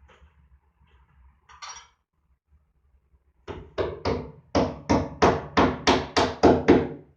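Hammer blows in quick succession: about a dozen sharp, ringing strikes, roughly three a second, growing louder, after a brief scrape.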